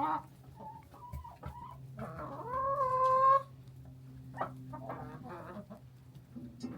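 Chickens clucking, with one loud, drawn-out hen call that rises and then holds, about two to three seconds in, over a steady low hum.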